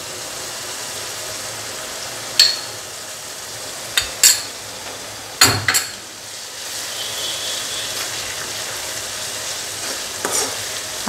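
Chopped onions, green chillies and curry leaves sizzling in hot oil in a nonstick pan, the frying base of a fish curry. Four or five sharp clicks of a metal spoon knocking on the pan come between about two and six seconds in as ginger-garlic paste is spooned in, and the sizzle grows a little louder as it is stirred through.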